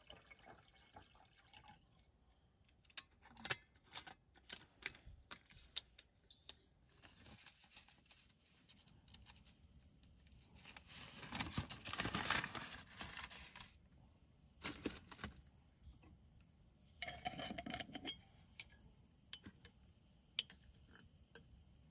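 Quiet handling of pour-over coffee gear: paper coffee filters rustling as they are fitted into collapsible silicone drippers, with scattered small clicks and knocks of mugs and jars. A longer rustle comes about halfway through and a shorter one a few seconds later.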